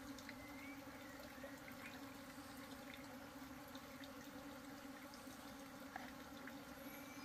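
Near silence with a faint, steady hum of honeybees around an open hive box.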